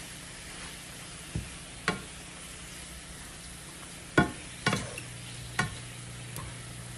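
Spinach sizzling as it wilts in a hot frying pan, a steady hiss, while a wooden spatula stirs it and knocks against the pan several times, the loudest knock about four seconds in.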